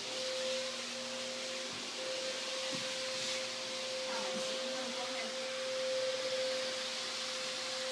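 A steady single-pitched tone holding one pitch throughout, over a background hiss.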